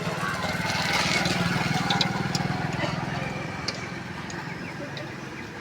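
A small engine running with a fast, even pulse, getting louder over the first couple of seconds and then slowly fading, with a few light metallic clicks.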